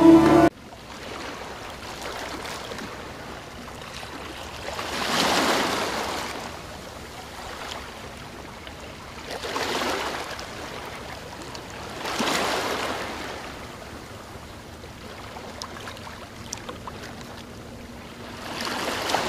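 Shallow stream rushing over rocks, a steady wash of water that swells louder several times.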